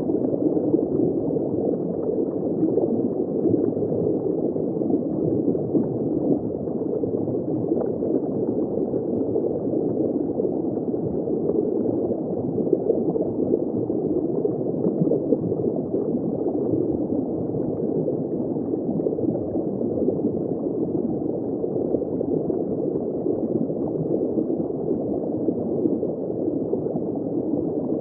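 Underwater ambience: steady, muffled bubbling and gurgling of water heard from just below the surface, with no sharp high sounds.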